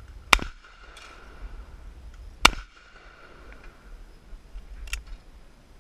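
Two shotgun shots about two seconds apart, each a sharp crack with a short fading tail, then a fainter click near the end.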